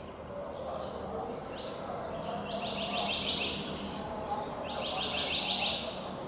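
Sparrows chirping, with short high chirps throughout, and another bird's fast trill of about six notes, given twice.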